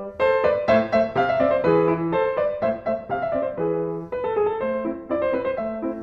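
Background piano music, a continuous flow of single struck notes.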